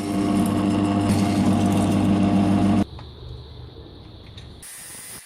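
A small electric motor, most likely a power tool, running steadily at a constant pitch and cutting off suddenly about three seconds in, leaving a faint hiss.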